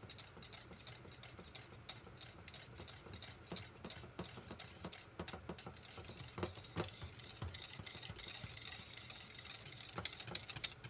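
Stainless steel wire whisk beating thick hot-process soap batter in a slow cooker crock: a fast, irregular run of soft clicks and scrapes as the wires stir through the batter and hit the pot, a little louder near the end. The batter has begun to separate during the cook and is being whisked back together.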